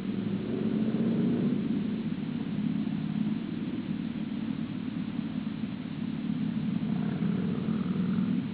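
Steady low outdoor rumble, slightly louder about a second in, with faint higher sounds near the end.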